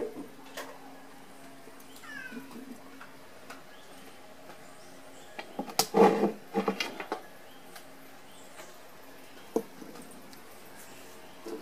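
A cat meowing about halfway through, a short pitched call that is the loudest sound, with a few light clicks and knocks of things being handled.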